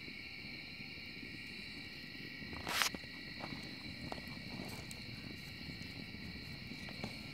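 Wood fire crackling in a metal fire pit, with scattered sharp pops and one loud, short rushing burst a little under three seconds in, over a steady high chorus of night insects.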